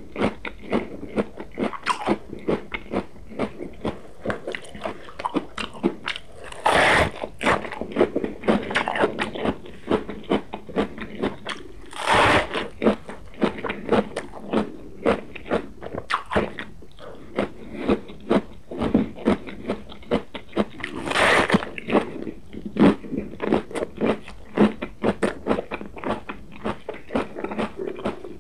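Crisp bites into a raw Belgian endive leaf and crunchy chewing. Three louder bites are spread through, with quick, steady crunching between them.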